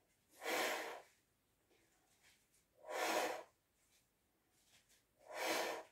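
A woman breathing hard through her open mouth from exertion during an abdominal exercise: three breaths, about two and a half seconds apart.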